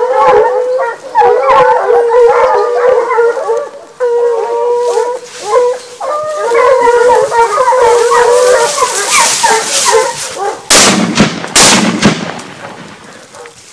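Hunting hounds baying and howling on a wild boar drive, several dogs giving voice at once in repeated drawn-out calls. Near the end, a few loud bangs break in and the sound then fades.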